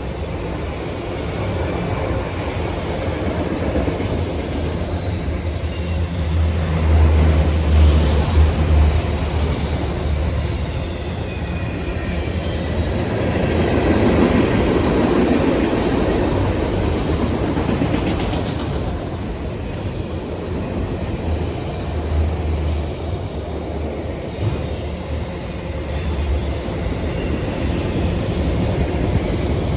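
CSX freight train rolling past on the rails: a continuous rumble of cars and wheel noise, swelling about seven seconds in and again around fourteen seconds. No horn sounds.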